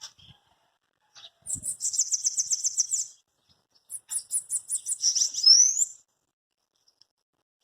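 Bananaquit (sibite) singing: two bouts of its high, rapid trilled song, about ten notes a second, the second bout ending in a quick rising slide.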